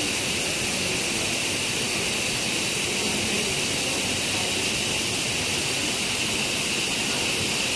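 Steady rush of flowing stream water, with a constant high-pitched hiss over it.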